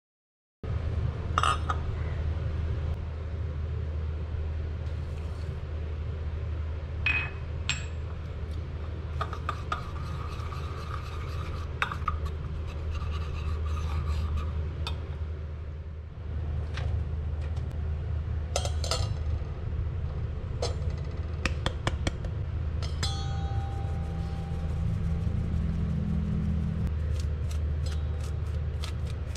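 A metal spoon clinking and scraping against a small stainless steel cup as instant coffee is stirred into hot water, then a silicone spatula rubbing powdered sugar through a metal mesh sieve in quick repeated strokes near the end. A steady low hum sits underneath.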